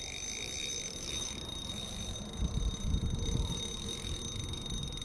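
Water moving around a kayak on a river, with a few low rumbles about two and a half to three and a half seconds in, like wind buffeting the microphone or the paddle being handled.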